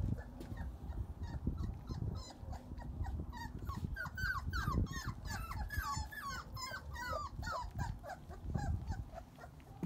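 Labrador puppies whining and yipping as they play and tussle, a rapid string of short high-pitched whines from about three and a half to eight seconds in, over a low rumbling noise.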